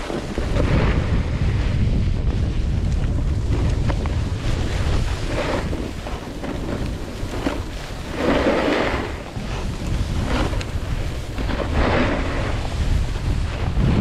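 Wind buffeting the microphone in a steady low rumble while riding downhill, with a snowboard's edge scraping over packed snow in about four swells during turns, the strongest about eight and a half seconds in.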